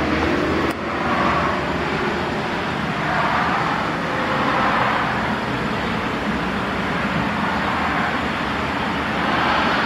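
Road traffic noise: a steady rush of cars and tyres on a multi-lane road, with passing vehicles swelling and fading every few seconds.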